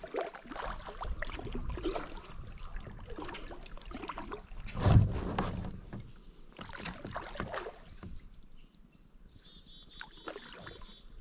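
Kayak paddling on a shallow river: paddle splashes and drips, with irregular light knocks against the plastic hull. A louder thump comes about five seconds in, and the sounds thin out after about eight seconds.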